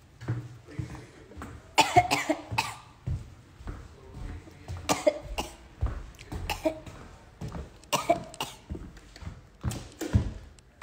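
A woman coughing in four bouts a few seconds apart, the loudest about two seconds in: smoker's coughing after a hit from a joint.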